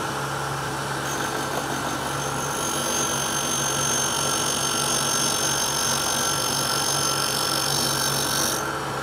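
Grinding wheel on its motor spindle running steadily while an end mill flute is passed across the wheel's edge for sharpening; a thin high grinding whine sets in about a second in and stops near the end, over the steady motor hum.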